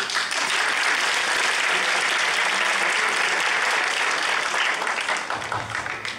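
Audience applauding, a dense, loud clatter of many hands that starts suddenly and thins out near the end.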